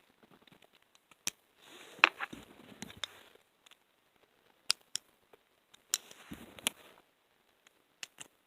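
Lego Technic beams and connector pins being handled and pushed together: a scattering of sharp plastic clicks with light rustling between them.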